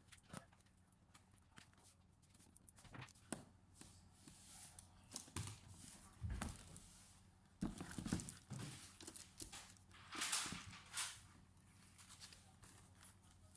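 Scattered light clicks and knocks of hands handling a laptop and its parts, with a few duller thumps and a short rustle about ten seconds in.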